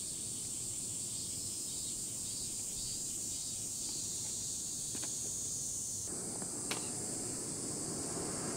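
Steady high-pitched drone of insects in the trees, with a couple of faint clicks about five and seven seconds in and some rustling from the folding camp chair being handled.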